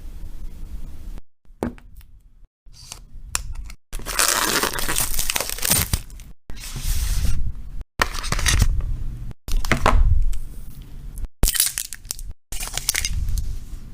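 Packaging being torn open and crinkled by hand, in short stretches that cut off abruptly between edits.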